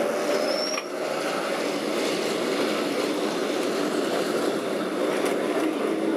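Lisbon vintage electric tram running along its street rails, heard from on board: a steady rumble of motor and wheels. A brief high squeal comes within the first second.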